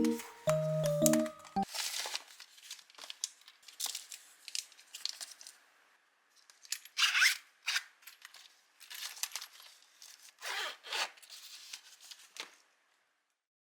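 A short bell-like mallet-instrument music phrase ends about one and a half seconds in. It is followed by irregular bursts of crisp rustling and scraping, like paper or wrapping being handled or cut, which stop near the end.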